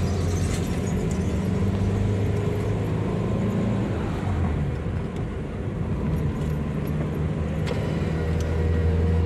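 Steady drone of a Daihatsu Terios's engine and tyre noise heard from inside the cabin while driving, easing a little around the middle and building again near the end.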